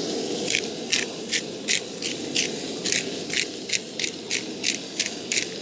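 Hand-held spice grinder being twisted over a pan, making short gritty crunches at about three a second, over a steady low hiss.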